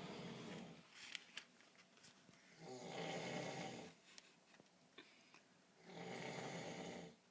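A man snoring heavily in his sleep: one snore ends about half a second in, then two long snores follow about three seconds apart, each lasting a little over a second.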